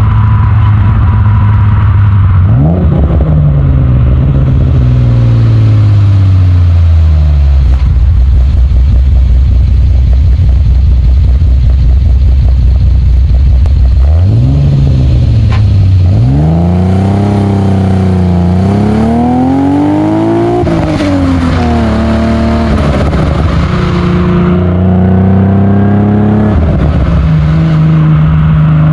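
Modified 1984 Alfa Romeo GTV6's built 3.0-litre V6 on the road. The revs rise briefly, fall away slowly and hold a low steady note. From about halfway the car accelerates hard, the engine note climbing and dropping at gear changes.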